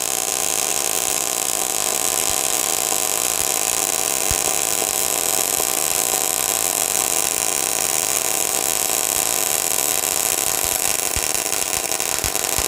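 MAG welding arc from a MIG200 D3 welder burning continuously on thick flat steel with 0.8 mm solid SG2 wire at 155 amps and 21 volts: a steady, even hiss. The welder judges these settings to weld a bit better than the last ones.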